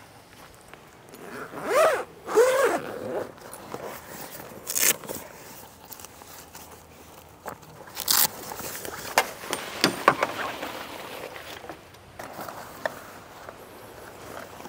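A zipper pulled open in two quick strokes, on the cover of a fold-out shower awning. It is followed by scraping of the awning's canvas and a few sharp knocks and clicks.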